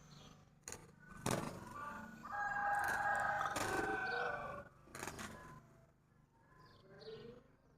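A bird giving one long call of about two seconds in the middle, with a few sharp knocks around it and fainter short calls near the end.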